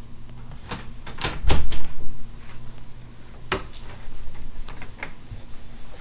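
A series of sharp knocks and clicks, the loudest a quick cluster about a second and a half in, with another single knock past the middle.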